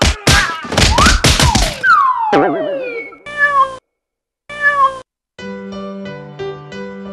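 Cartoon sound effects: a rapid run of crashing, clattering impacts, then a long falling whistle that ends in a wobble, then two short cat meows. Gentle piano music starts about five seconds in.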